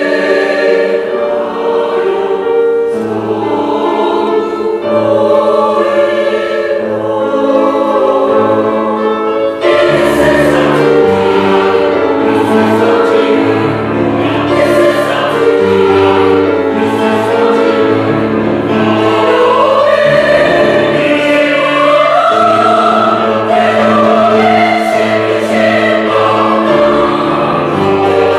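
Large church choir singing a Korean hymn anthem in parts; the singing grows fuller and slightly louder about ten seconds in.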